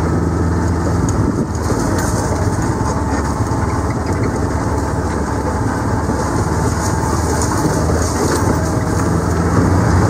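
A vehicle's engine running steadily as it drives slowly along a rough dirt track, heard from on board, with light rattles over the bumps.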